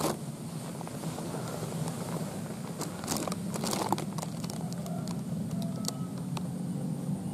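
A steady low hum runs throughout. A click comes at the very start, and a spell of crackling and rustling with several sharp clicks comes about three to four seconds in.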